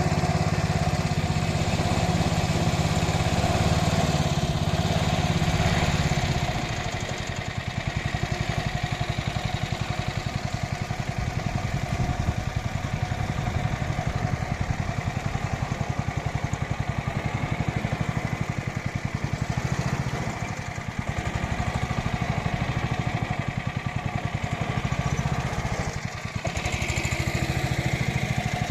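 Small boat engine running steadily, a little quieter after about six seconds.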